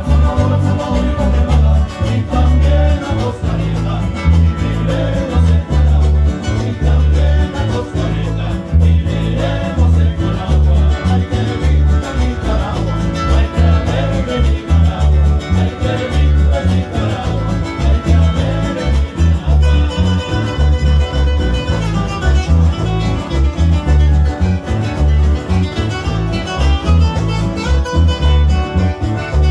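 Live Nicaraguan northern folk string band playing an instrumental passage: strummed acoustic guitars and a requinto over a steady, bouncing bass-guitar beat, with percussion.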